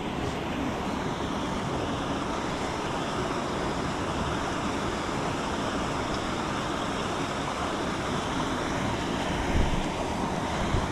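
Steady rushing of flowing river water, with two brief low thumps near the end.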